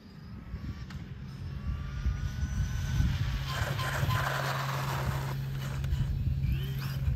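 Electric motor and drivetrain of a Losi Promoto RC motorcycle whining as it accelerates, the pitch rising over the first few seconds. This is followed by about two seconds of harsher hiss in the middle, over a steady low hum.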